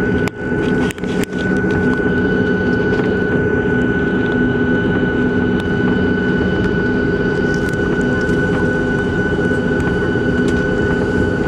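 Boeing 737-700's CFM56-7B jet engines running at taxi power, heard inside the cabin over the wing: steady engine noise with a constant high whine. A few short clicks come about a second in.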